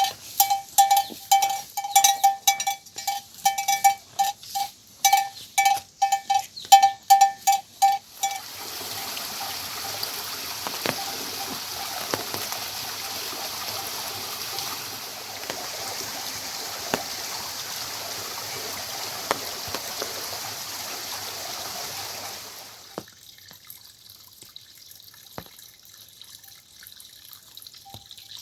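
A metal animal bell clanks rapidly and irregularly, about two strikes a second, for the first eight seconds or so. It cuts to a steady rush of running water, which stops suddenly near the end and leaves a much quieter background with faint insect chirping.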